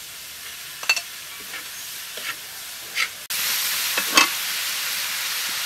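Sausage, squid rings and vegetables sizzling in a hot wok, with a few clinks of a metal spatula as the food is stirred. The sizzle becomes louder a little past three seconds in.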